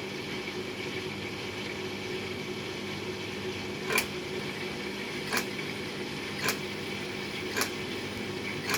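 Beko laundry machine running with a steady hum. From about four seconds in, a sharp knock or click repeats roughly once a second: the strange noise the machine is making.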